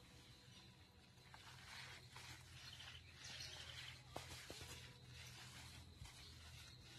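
Near silence: faint outdoor background with a low steady hum and a few soft clicks.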